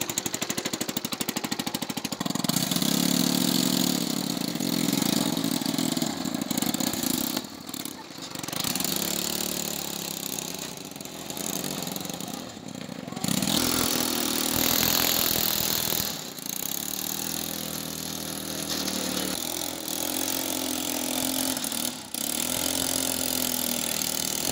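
Small engine of a home-built mini tractor running, a fast even pulsing close to the engine at first, then a steadier hum whose pitch rises and falls as it drives pulling a trailer, changing abruptly several times.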